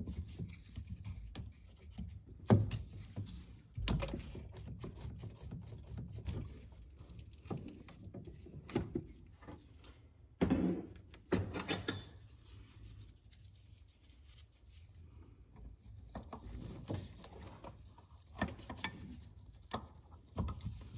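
Intermittent metal clicks and knocks of a wrench on the hydraulic line fittings of a hydro-boost brake booster as the lines are loosened, with rustling of hands working between them.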